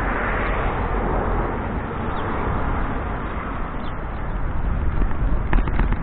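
Wind buffeting the microphone of a moving bicycle rider, with tyre noise on paving stones underneath, and a few sharp clicks about five and a half seconds in.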